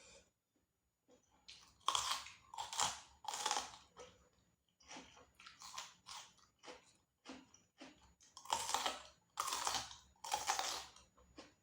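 Crunchy food being chewed close to the microphone, in irregular bursts of loud crunching, with two loudest runs a few seconds in and again near the end.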